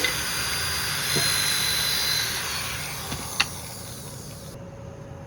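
A power tool running with a steady whine and hiss, then fading away. A sharp click comes about three and a half seconds in.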